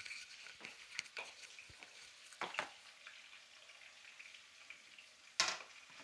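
Eggplant slices frying in oil in a pan: a faint sizzle with scattered small crackles and pops, and one louder short crackle near the end.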